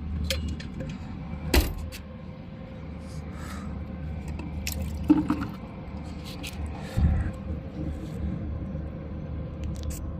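Water pouring from a plastic water container, its lid opened, into a plastic bucket, with a few sharp knocks of plastic against plastic, over a steady low hum.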